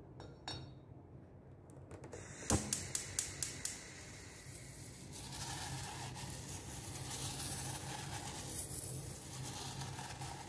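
A quick run of about six sharp clicks, then a steady rustling hiss as silica gel beads are stirred with a wooden chopstick in a stainless steel pot.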